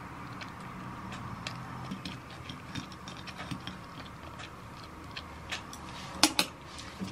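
Wooden spoon and chopsticks clicking and scraping against a ceramic bowl and plate while eating, in many small irregular taps over a steady low hum. Two sharper clinks come about six seconds in.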